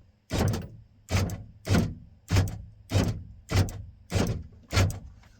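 Door lock of a 1997 Ford F-250, with a freshly reinstalled latch and power lock actuator, being cycled locked and unlocked to test it: about eight sharp clunks, evenly spaced at just under two a second.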